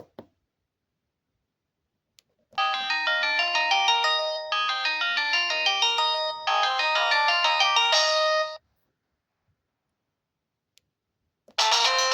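Pantech PG-C120 cell phone playing one of its default polyphonic ringtones through its speaker: a bright melody in three phrases of about two seconds each, stopping a little past the middle. A few faint clicks come before and after it, and a second ringtone starts near the end.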